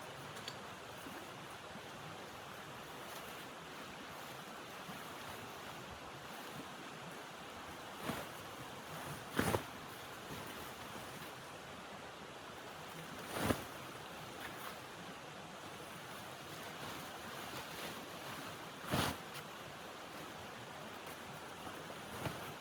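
Steady rushing wind of a blizzard, broken by a few brief sharp sounds several seconds apart.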